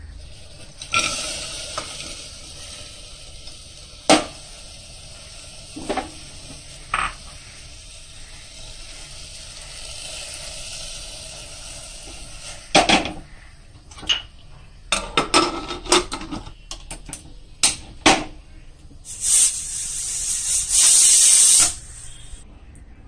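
Cooking at a stainless steel pressure cooker: a steady hiss with a few sharp knocks, then a quick run of metal clanks as the pot and its lid are handled, and a loud hiss lasting about three seconds near the end.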